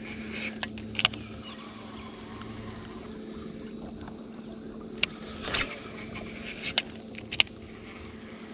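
Steady hum of an electric bow-mounted trolling motor, with a few short sharp clicks from the baitcasting rod and reel as the lure is cast and retrieved.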